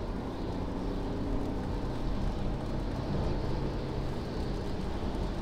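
Steady engine and tyre noise inside a car's cabin as it accelerates on a wet motorway from about 80 toward 100 km/h, a low rumble.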